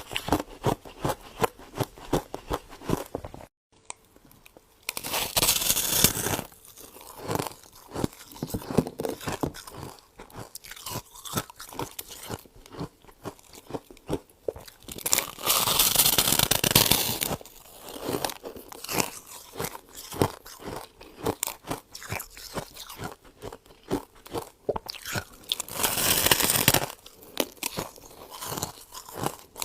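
Close-up crunching and chewing of freezer frost: dense, rapid crisp crunches. Three longer rasping stretches, about 5, 15 and 26 seconds in, are frost being scraped off the freezer. The sound drops out briefly about 3.5 seconds in.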